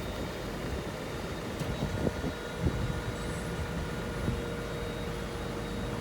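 Cat C7.1 diesel engine of an asphalt paver running steadily, with a few short knocks about two to three seconds in.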